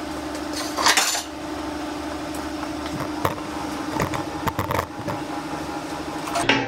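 Metal clanks and knocks as a bare steel motorcycle frame is shifted and straightened on its stand: a longer clatter about a second in, then several sharp knocks, over a steady hum.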